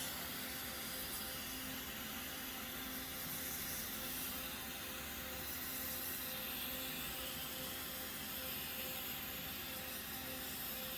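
Steady hum and hiss of welding equipment, with a faint electrical tone.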